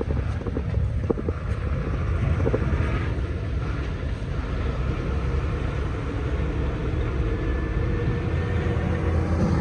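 Road traffic: a vehicle engine running close by, a steady low rumble with a faint engine hum.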